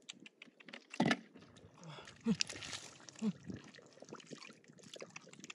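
Catfish wriggling and slapping in wet mud as hands grab them, with squelches and sloshing of muddy water and a few short low grunts.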